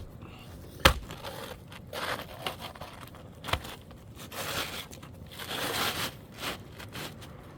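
Asphalt roofing shingle being handled and fitted, scraping and rustling against the shingles around it in two longer spells, with a sharp knock about a second in and another a few seconds later.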